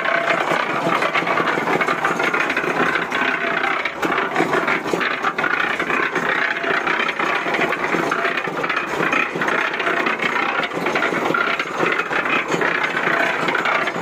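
Small cement mixer running, its drum turning with a steady rattle as wet clothes and soapy water tumble against the mixing blades inside.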